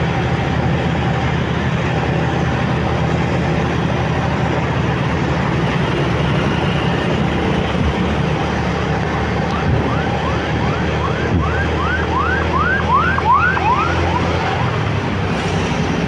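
Steady rumble of a motorcycle riding in city traffic. From about ten seconds in, an emergency-vehicle siren sounds a quick run of rising-and-falling whoops, about two and a half a second. The whoops grow louder and stop shortly before the end.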